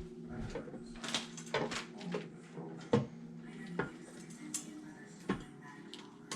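Scattered sharp clicks and clinks of small hard parts being handled, about five distinct taps over a few seconds.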